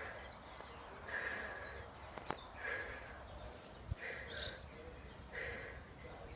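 Faint rhythmic breathing, a short breath about every second and a half in time with each glute-kickback rep, over faint outdoor background noise.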